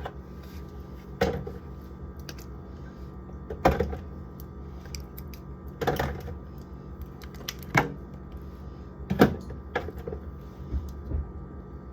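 Condiment bottles and jars clunking as they are set into a refrigerator's door shelves: several separate knocks a second or two apart, over a steady low hum.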